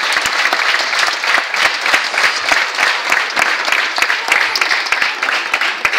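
Audience applauding: a dense, steady stream of hand claps.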